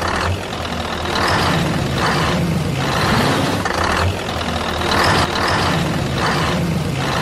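Truck engine running steadily, its sound swelling and easing about once a second.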